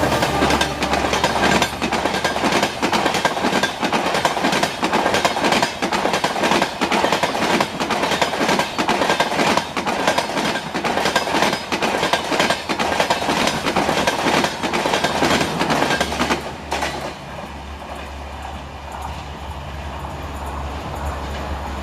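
Coaches of a passenger train rolling past at speed, wheels clattering rapidly over the rail joints. The clatter stops about sixteen seconds in, leaving a quieter, steady low rumble.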